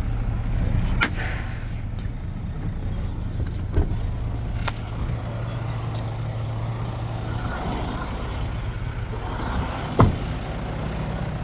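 Truck engine idling steadily with a low hum, with a few sharp knocks and clacks, the loudest about ten seconds in.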